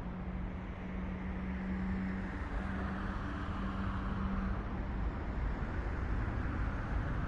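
Distant city traffic rumble, with a steady low hum that fades out about four and a half seconds in.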